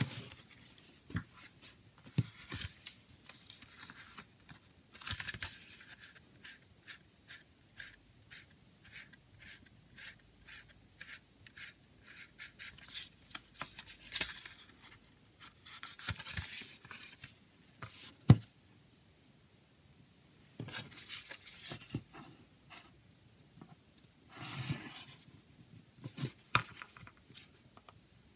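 Cellophane shrink-wrap being worked off a cardboard CD box set, crinkling and crackling in many short bursts and rubs, with the case knocking on the table now and then and one sharp knock about two-thirds through.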